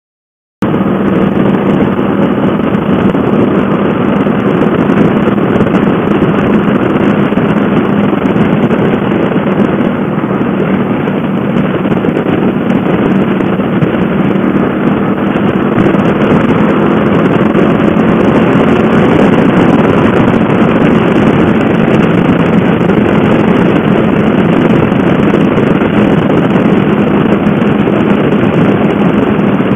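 Wind rushing over the microphone with the steady drone of a Suzuki M50 Boulevard's V-twin engine cruising at highway speed. The sound cuts in suddenly about half a second in.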